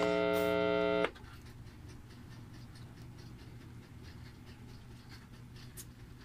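A steady electronic beep that stops abruptly about a second in, then a faint low hum with light ticks.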